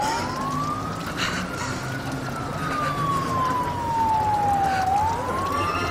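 Emergency vehicle siren wailing: a single tone that rises and falls slowly, climbing for about two seconds, sinking for about three, then climbing again near the end.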